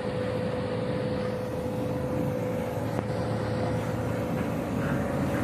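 Single-drum road roller's diesel engine running steadily as the machine drives across bare dirt, a steady tone held over the rumble.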